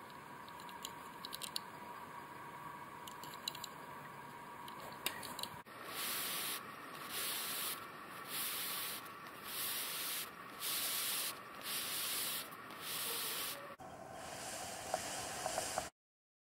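Faint hiss with a few light clicks, then from about six seconds in a run of about eight short bursts of hissy rubbing noise, roughly one a second. The sound cuts off suddenly near the end.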